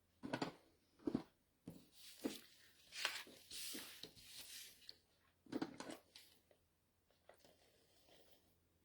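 Paper being handled and glued down: a string of short, faint paper rustles and taps, with a longer scraping rustle about three seconds in.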